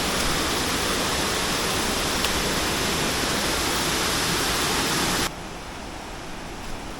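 Steady rushing of a nearby waterfall, an even hiss across all pitches. About five seconds in it drops suddenly to a much quieter rush.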